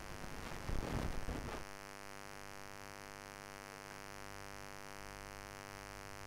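Steady electrical hum from the recording, many evenly spaced tones at once, with about a second of crackling noise near the start.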